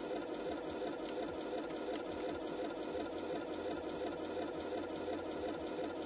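RC model tank's sound unit playing a simulated tank engine idle through its small built-in speaker: a steady, evenly repeating chug.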